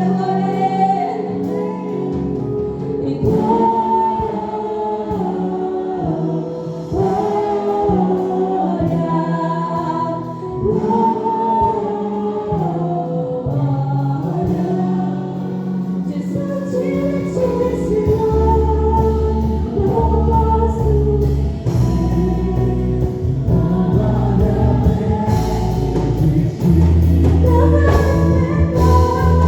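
Gospel praise song sung by a group of voices with instrumental backing; a strong low bass comes in about halfway through.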